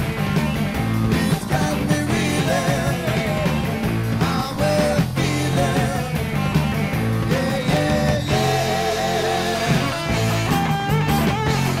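Southern hard rock band playing: electric guitar lines over bass and drums with a steady beat.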